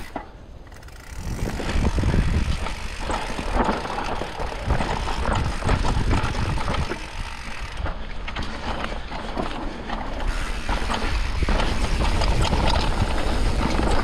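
Mountain bike ridden fast down a dirt singletrack. Tyre and trail noise comes with many sharp clicks and rattles from the bike over bumps, and a low wind rumble on the camera microphone. It gets loud about a second in, after a quieter start where the rear hub ticks as the bike coasts.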